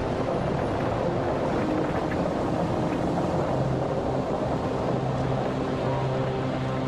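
Steady rushing noise of a World Trade Center tower collapsing into a dust cloud, with soft sustained music notes beneath that come forward near the end.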